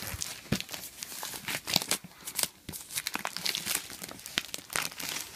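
Outer store packaging being torn and pulled open by hand: an irregular run of crinkling, tearing and scraping with sharp clicks.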